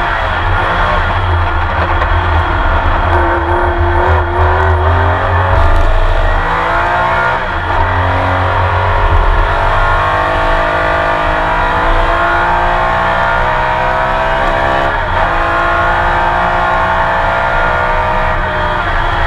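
Porsche 911 RSR's flat-six racing engine heard onboard, its revs climbing and falling through the gears. There are sudden changes in pitch about seven seconds in and again near fifteen seconds.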